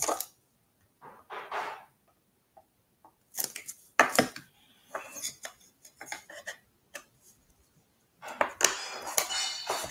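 Thin MDF craft panels knocking, clacking and scraping against each other and the tabletop as they are handled and their tabbed edges fitted together: a string of separate light knocks and scuffs, busier near the end.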